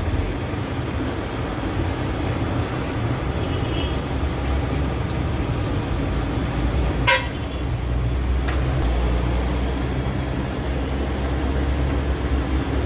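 A vehicle engine running with a steady low rumble that gets a little stronger about halfway through, and a single short, sharp sound just before that.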